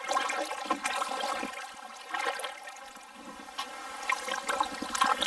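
Kayak paddle strokes through water thick with lily pads: irregular splashes from light, shallow strokes, with water running and dripping off the blade between them.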